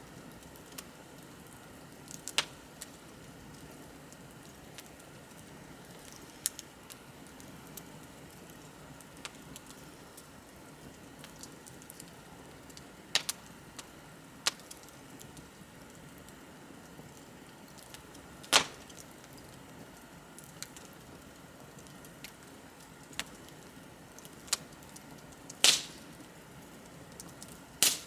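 Wood fire crackling: a low steady hiss of burning under sharp pops that come at uneven intervals every few seconds, the loudest about two-thirds of the way in and near the end.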